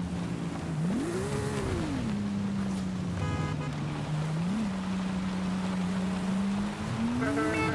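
Sports car engine running with a steady note. It is blipped once about a second in, rising and falling back smoothly, and given a shorter, smaller blip near the middle. It starts to rise again near the end.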